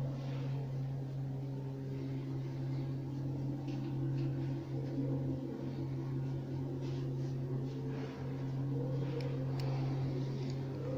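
A steady low hum with fainter wavering tones above it and a few faint ticks.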